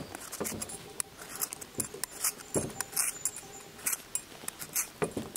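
A potato being peeled with a hand-held vegetable peeler: a quick run of short, irregular scraping strokes of the blade across the skin.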